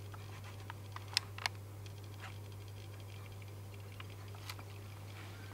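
Quiet room tone with a steady low hum and scattered faint clicks from a handheld camcorder being handled, with two sharper ticks a little over a second in.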